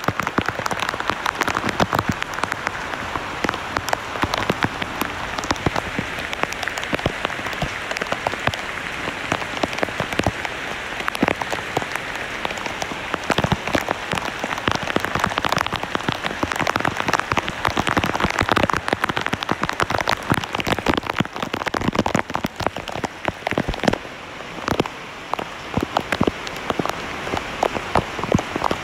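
Heavy rain falling on tree leaves: a steady hiss with many sharp individual drops hitting close by.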